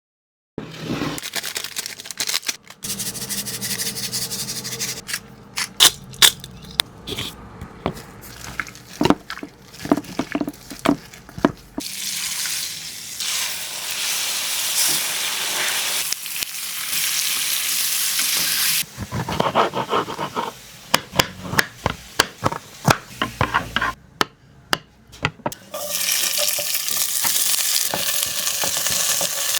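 Food frying and sizzling in a hot pan, with stretches of steady sizzle broken by sharp clicks and scrapes of a utensil stirring against the pan.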